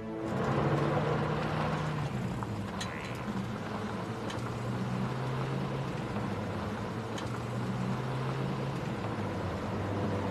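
Vintage car driving slowly, its engine giving a steady low hum over road noise.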